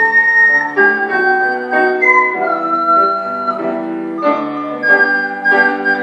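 Saxophone playing a slow hymn melody in held notes over piano and organ accompaniment, with one long held note in the middle.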